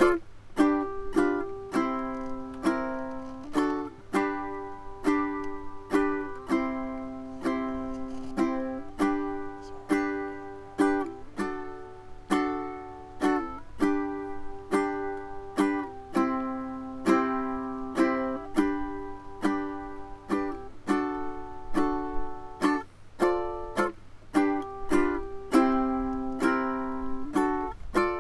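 Background music: a plucked string instrument strumming chords in a steady rhythm.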